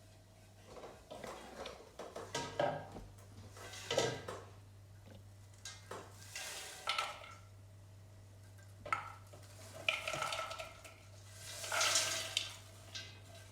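Popped popcorn being tipped out of a stovetop pot into a bowl: irregular clanks and scrapes of the pot and a utensil against the bowl, with the rustle of the popcorn, in several bursts.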